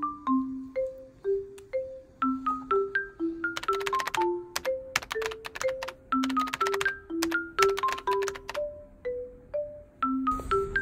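Light background music: a melody of short struck notes, about two a second, over a ticking beat.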